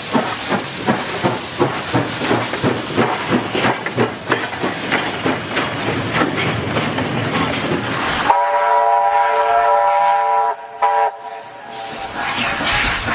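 SY-class steam locomotive passing close, its exhaust beating rapidly at about three chuffs a second, then the passenger coaches clattering over the rail joints. After an abrupt change, the locomotive's steam whistle sounds one long blast of about two seconds, then a brief toot, and the distant exhaust of the working locomotive returns near the end.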